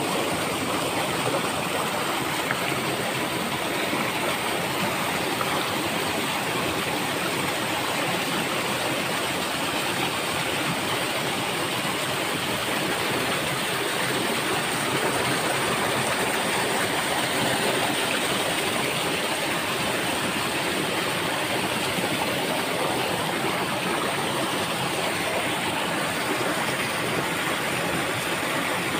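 Stream water rushing and splashing over boulders in a small cascade, a steady rush of water.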